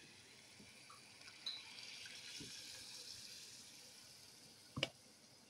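Boiled toor dal poured from a steel bowl into the hot tomato tadka in a kadhai, a faint liquid hiss that swells and then fades. A sharp knock comes near the end.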